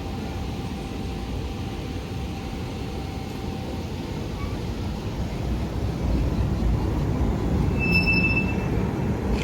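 Heritage tram running on street track: a steady low rumble of wheels on rail that grows louder after a few seconds, with a short high wheel squeal near the end.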